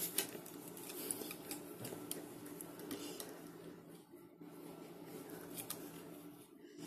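Small sharp clicks and rustles of hands handling and twisting thin hookup wire together, over a steady low hum.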